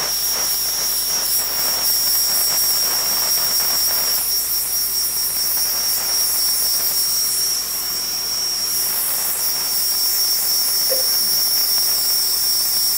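Spotting gun on a dry cleaner's spotting table blowing a steady jet over a damp treated spot to dry the fabric quickly: a continuous hiss with a high, steady whistle.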